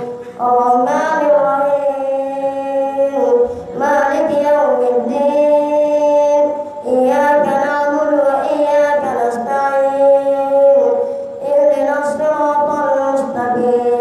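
A boy's voice reciting the Quran aloud in a melodic chanted style, holding long notes in phrases with brief pauses for breath.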